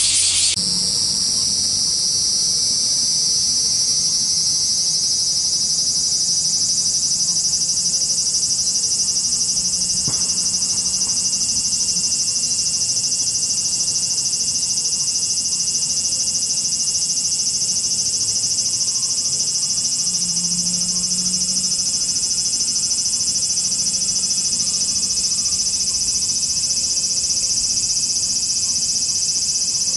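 Cicadas buzzing in a dense, steady, high-pitched chorus. A broader hiss cuts off about half a second in.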